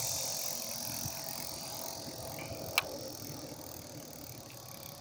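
Electric bike's 250 W hub motor spinning the wheel under throttle, a steady whine and hiss that slowly fades. A single sharp click about three seconds in.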